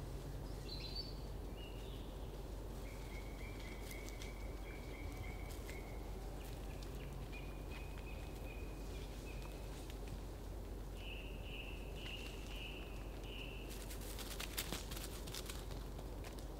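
Quiet outdoor wildlife ambience: a steady hiss with runs of high, thin, trilling calls from a small animal, then a short burst of crackling clicks about fourteen seconds in.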